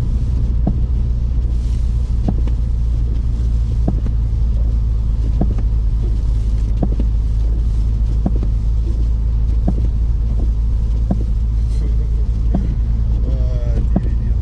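BMW 320 touring driving through snow, heard from inside the cabin: a steady low drone of engine and tyres with scattered light clicks.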